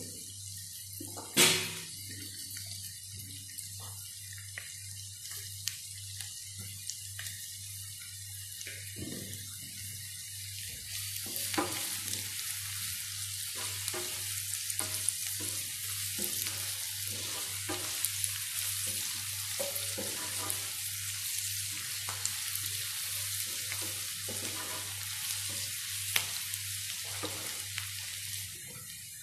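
Onion, green chilli, garlic and ginger frying in coconut oil in a nonstick pan, sizzling steadily as a slotted spatula stirs and scrapes them in short strokes. The sizzle grows louder about eleven seconds in. There is a sharp knock about a second in, and a low hum pulses steadily underneath.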